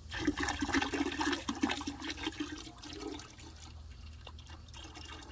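Muriatic acid glugging and splashing as it is poured from a plastic gallon jug into a bucket of water. The pour is loudest for about the first three seconds, then eases to a quieter trickle.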